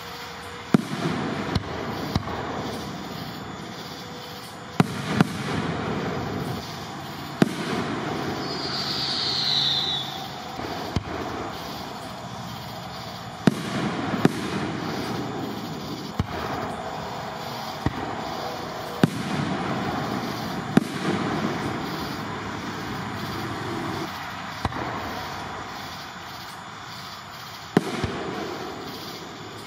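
Aerial fireworks shells bursting: about a dozen sharp bangs at irregular intervals, with rumble and crackle in between. A short falling whistle comes about nine seconds in.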